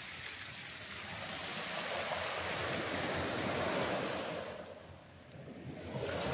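Surf on the beach: a wave breaking and washing up the shore, swelling to a peak about three to four seconds in and fading, with the next wave coming in near the end.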